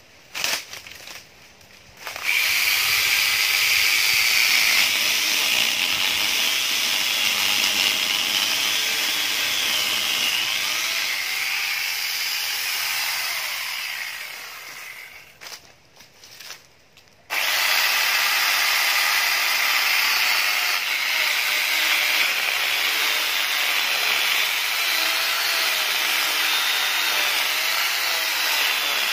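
Corded electric angle grinder with a saw attachment cutting into a mango tree trunk: a loud, steady power-tool run with a wavering whine and the rasp of the cut in wood. After a few short knocks it starts about two seconds in, winds down and stops around the middle, then starts again and keeps cutting.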